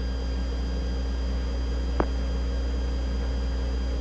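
Steady hum and hiss of the open Apollo 11 air-to-ground radio channel between transmissions, with a single short click about halfway through.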